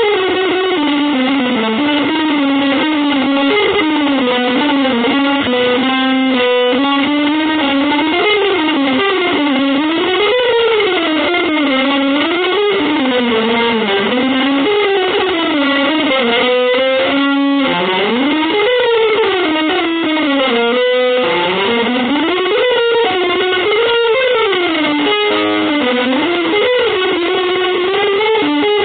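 Electric guitar with effects in an improvised, avant-garde style: one continuous line that slides up and down in pitch without stopping, broken by a few brief stuttering breaks.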